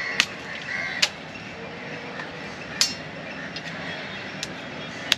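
Machete chopping into a king coconut: four sharp, irregularly spaced chops with a few lighter taps between them.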